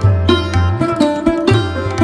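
Background music: a plucked string melody over a repeating low bass note, with sharp note attacks at an even beat.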